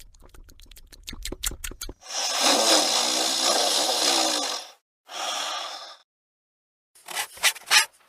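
Secretary bird calling: a long, harsh, rasping call about two seconds in, then a shorter one, with quick clicking before them and a few sharp clicks near the end.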